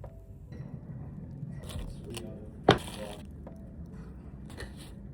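Faint scraping and small handling noises over a low rumble, with one sharp click about halfway through.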